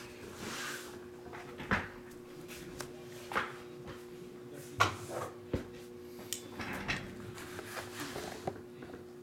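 Handling of shrink-wrapped trading-card boxes: about half a dozen soft knocks and taps spread over several seconds as the boxes are moved and set on the table, over a faint steady low hum.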